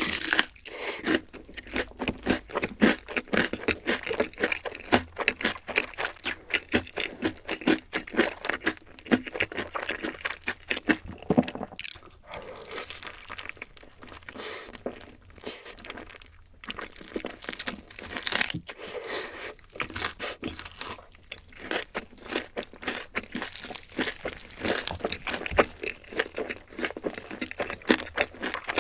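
Close-miked eating: rapid crunching and chewing of crisp food, a steady stream of crackles and bites.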